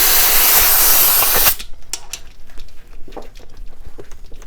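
Loud hiss of compressed air from an air hose blowing into a tubeless mountain bike tire to get it to seat, cutting off about a second and a half in. Quieter clicks and rustling follow.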